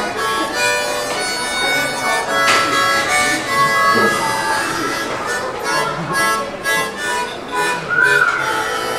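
Harmonica playing a melody with chords, several notes sounding at once and the tune moving from note to note.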